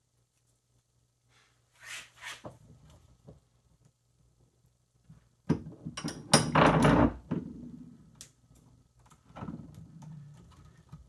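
A bench vise being worked: a couple of knocks about two seconds in, then a louder run of metal clunks and scraping about halfway through as the knife is set between the jaws and the vise handle is turned. Softer handling knocks follow near the end.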